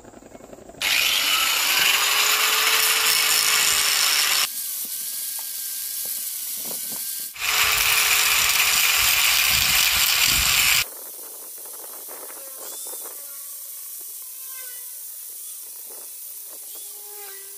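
Handheld electric angle grinder (Modern brand) grinding the edge of a boat propeller blade to shape it, in two loud passes of about three and a half seconds each with a quieter spell between them; it stops about eleven seconds in.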